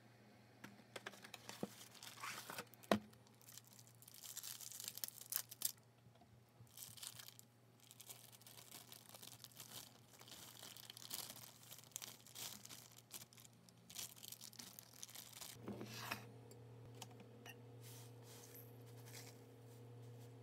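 Crinkling and tearing of a cake-mix bag, with dry mix pouring into a stainless-steel mixing bowl. One sharp tap about three seconds in is the loudest sound.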